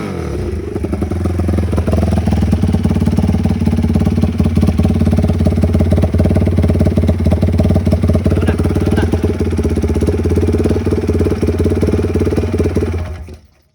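Motorcycle engine idling steadily, then switched off and dying away about 13 seconds in.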